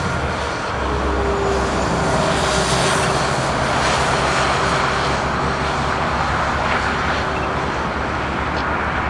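A column of snowplow trucks running together with their blades down pushing snow along the highway: a steady, loud mix of diesel engine rumble and blade-and-snow noise, getting a little louder in the first few seconds as the trucks come closer.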